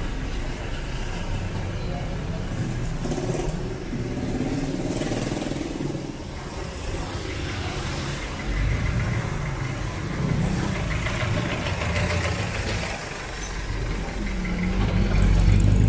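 Street traffic: vehicle engines running and passing close by, with one vehicle growing louder near the end.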